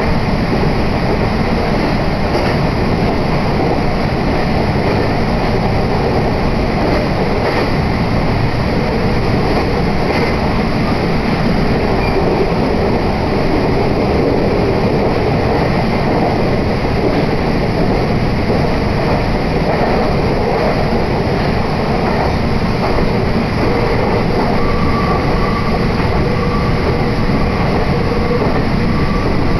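Steady running noise of a Meitetsu Hiromi Line train heard from inside the carriage: wheels on rail and the running gear rumbling as the train travels at speed. A faint steady high tone joins in near the end.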